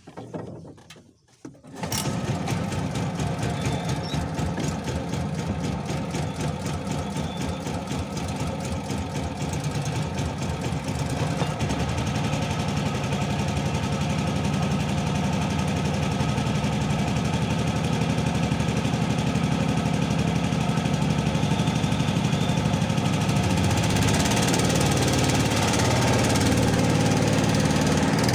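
Small wooden boat's engine starting about two seconds in after a brief sputter, then running steadily with a fast, even beat as it drives the boat out across the water.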